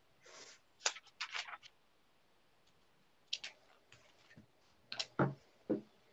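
A handful of short, faint clicks and taps, one near the end with a duller knock, separated by dead silence, heard through a video call's gated audio.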